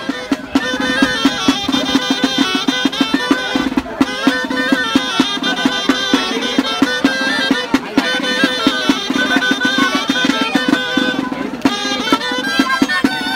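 Traditional folk dance music: a melody over a steady drumbeat.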